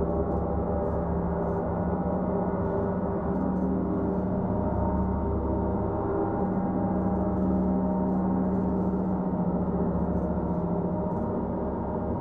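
Gongs of a triple gong bath, a large Paiste gong among them, played continuously with a mallet. They make a dense, sustained wash of many overlapping tones at a steady level, with no single sharp strike standing out.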